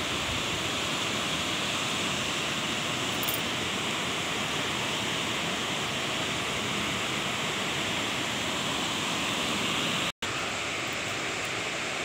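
Waterfall rushing over granite rocks into a pool, a steady, even roar of falling water. It cuts out for a split second about ten seconds in.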